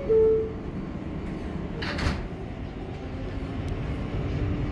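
New York City subway car door chime ending on its lower note of the descending two-tone pair. About two seconds later the sliding doors close with a short hissing thud, under a steady low rumble of the train that builds slightly.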